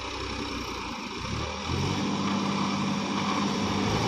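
Diesel tractor engines running hard, pulling a tractor stuck in deep mud; the engine note grows louder and holds steady from a little under two seconds in.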